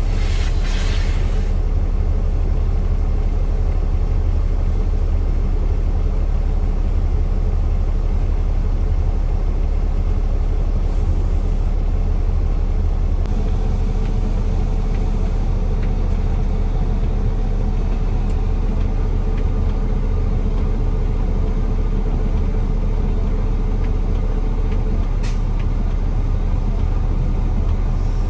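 Heavy diesel truck engine running steadily, a low rumble heard from inside the cab while the truck moves off slowly. A hiss sounds in the first second or so, and a single click comes near the end.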